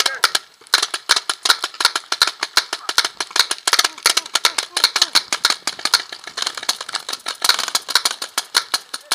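Paintball markers firing rapid strings of shots, several guns at once, a fast uneven clatter of sharp pops with a brief pause just after the start.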